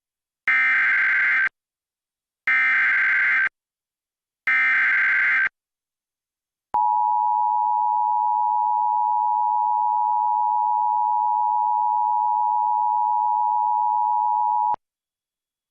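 Emergency Alert System activation for a flood warning. Three one-second bursts of SAME header data, a buzzing digital warble, come one second apart, then the two-tone attention signal holds a steady dual tone for about eight seconds and cuts off.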